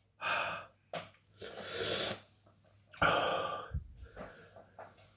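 A man breathing hard in and out through his mouth, several separate hissing breaths with short gaps between, as he copes with the burn of a superhot Primotalii chilli pepper.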